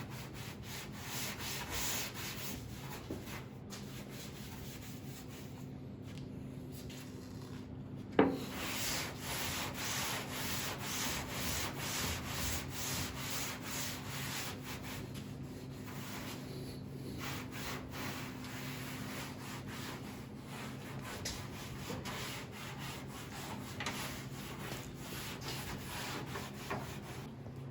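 A rag being rubbed over a pickup truck's painted steel body, wiping it down with wax and grease remover, in repeated strokes, with one brief squeak about eight seconds in. A steady low hum runs underneath.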